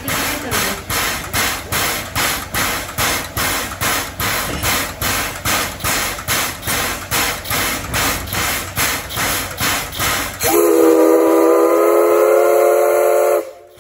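C11 steam locomotive standing with steam hissing in even pulses, about two and a half a second. About ten and a half seconds in, its steam whistle sounds one loud blast of about three seconds that cuts off sharply.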